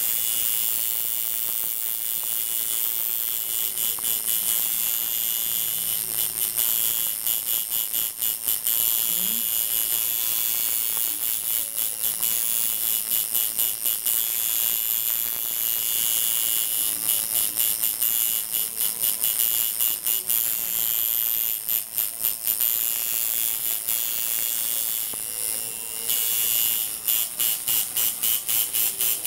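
Coil tattoo machine buzzing steadily while the needle fills in blue ink. At times the buzz turns choppy and stutters in quick pulses.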